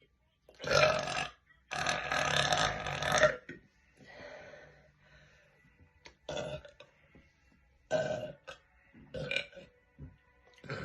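A woman burping loudly, about six times: two loud burps near the start, the second long and drawn out, then a softer one and three short ones spaced a second or two apart.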